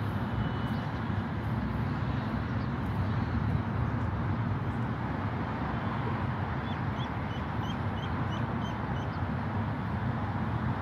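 Steady open-air city background noise with a low rumble, and a small bird giving a quick series of about eight short high chirps from about six and a half seconds in.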